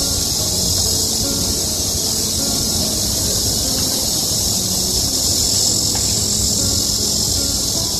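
A steady, loud, high-pitched insect chorus, a continuous shrill hiss, over a low rumble.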